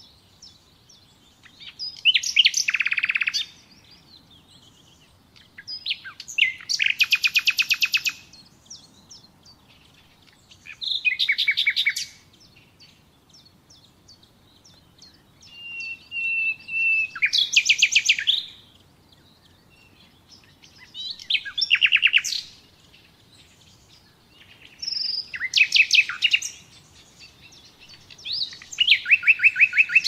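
Common nightingale singing: about seven short phrases of rapid repeated notes and trills, each a second or two long, separated by pauses of about two seconds. One phrase near the middle opens with a long drawn-out whistle.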